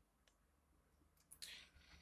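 Near silence, with a few faint clicks and rustles about one and a half seconds in: hands twisting the thin wires of a cut USB data cable together.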